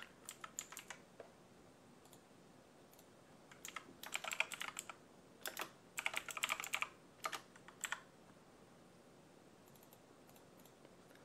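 Computer keyboard typing in several short runs of keystrokes with pauses between.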